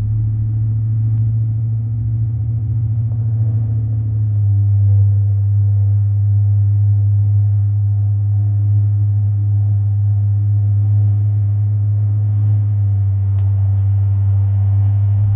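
Steady low drone inside a moving truck's cabin, a constant deep hum from the engine and road with no change in pitch.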